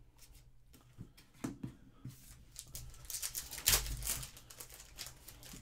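A foil trading-card pack wrapper being torn open and crinkled by hand, a dense crackle that builds and is loudest a little under four seconds in.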